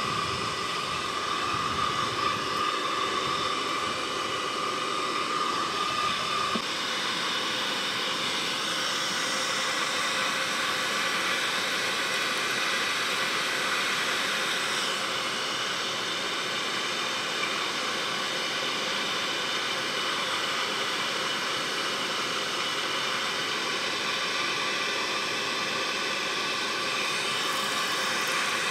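Forge air blower running with the fire, a steady rushing hiss with a faint hum; a higher whine in it stops about six seconds in.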